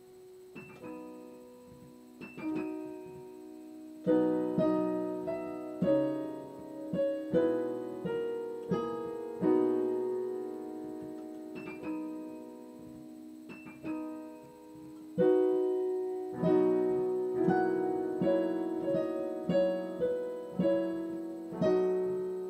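Solo piano playing a slow classical piece: a few soft, separate notes at first, then from about four seconds in louder chords and melody notes left ringing, softening for a while before fuller chords return.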